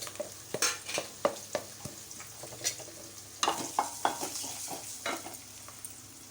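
Spatula scraping and knocking irregularly against a frying pan as food is stirred in hot oil, over a steady light sizzle. The knocks come thickest a little past the middle.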